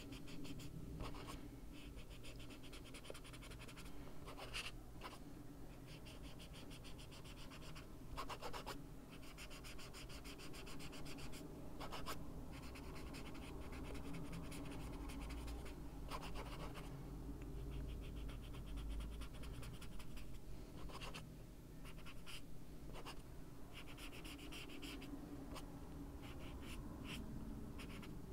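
Small hand-held ink blending tool rubbing over coloring-book paper in quick, short scratchy strokes as ink is worked in, with a few louder scrapes now and then.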